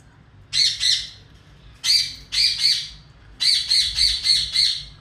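Parrot squawking in three runs of quick repeated calls: two, then three, then about five in a row near the end.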